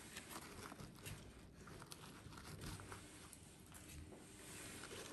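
Near silence, with faint rustling and a few light clicks.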